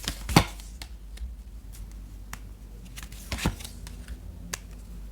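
Tarot cards being handled and shuffled: a few short, sharp card snaps and taps, the loudest about half a second in and more around three and a half seconds in.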